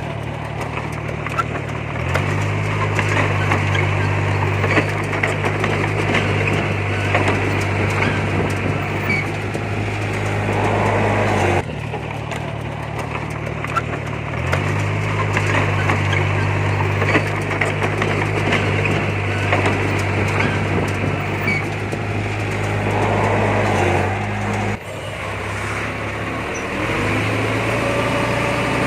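Heavy diesel earthmoving machinery running under load, a steady low engine hum that rises in step twice and breaks off abruptly twice, with scattered clanks and scraping over it.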